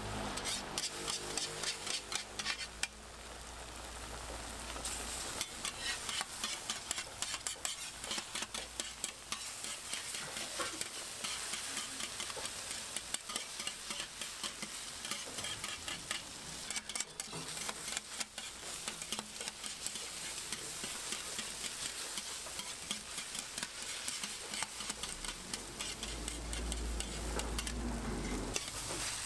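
Egg patty with shredded carrot and cabbage sizzling in oil on a flat steel griddle, while metal spatulas scrape and tap on the griddle as it is cut into pieces. A low hum sits under it in the first few seconds and again near the end.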